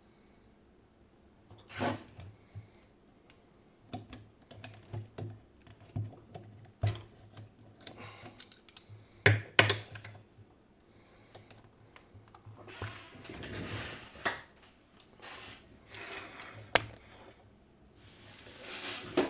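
Irregular small metal clicks, taps and scrapes of a disc detainer padlock and its tools being handled as the lock is taken apart, with a few longer scraping, rustling stretches in between.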